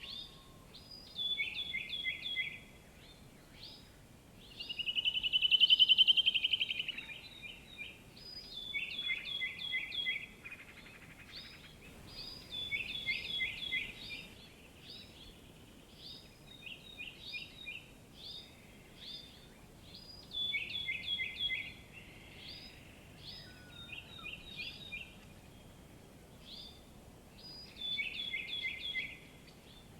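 Birds singing: short phrases of quick high notes that step down in pitch, repeated every few seconds, with a loud rapid trill about five seconds in, over a faint steady outdoor background.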